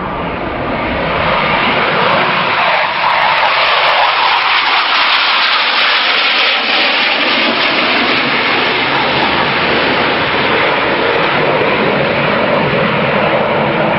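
Jet roar from F/A-18 Hornet display jets flying past: a loud, continuous rushing noise that builds over the first couple of seconds and then holds steady.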